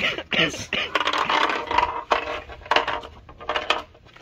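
A loose brake light bulb rattling and clicking around inside a plastic VW Polo rear light cluster as it is tipped and shaken. The bulb has come out of its holder, which is why the brake light doesn't work.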